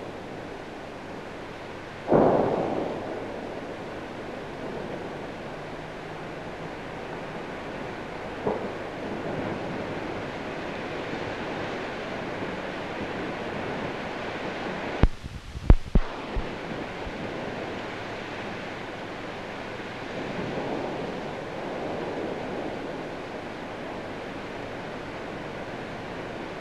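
Steady hiss and rumble of transfer noise from a silent newsreel film, with a sudden thump about two seconds in and a quick cluster of sharp clicks a little past the middle.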